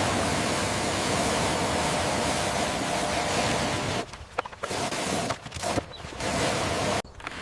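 A steady, loud rushing hiss that runs unbroken for about four seconds, then stops and starts several times and cuts off sharply near the end.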